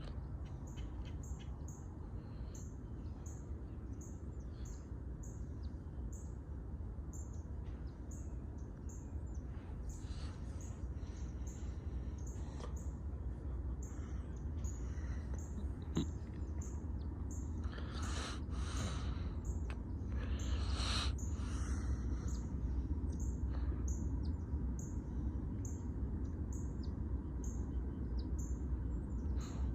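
Birds chirping over and over, short high calls at a fairly even pace, with a louder run of calls about two-thirds of the way through, over a steady low rumble that slowly grows louder.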